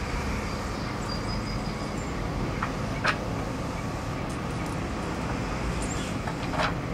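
Steady low background rumble with two light knocks, one about three seconds in and one near the end, from hands working hardware into the wooden wall-bed frame.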